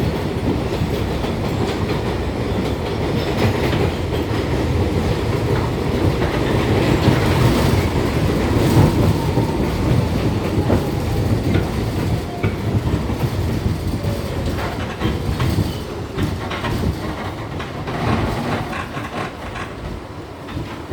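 R62A subway train on the 6 line running along the track: a steady, loud rumble with the clickety-clack of wheels over rail joints, growing a little quieter over the last few seconds.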